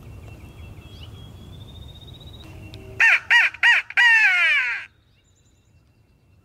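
Crow cawing loudly: three short caws about three seconds in, then a longer, harsher call that falls in pitch and cuts off about five seconds in.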